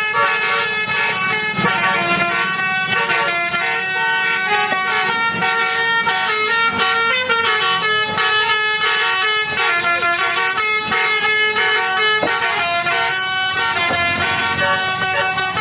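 Telolet basuri bus horn, the multi-trumpet musical horn of an Indonesian bus, playing a long unbroken melody: chords of several horn tones stepping from note to note every fraction of a second.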